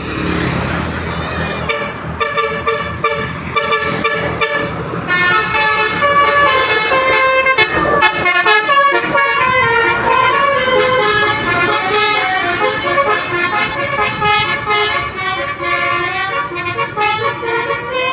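Basuri horn, a multi-trumpet air horn on a passing vehicle, playing a quick tune of rapidly changing notes. It starts about a second and a half in, over vehicle noise.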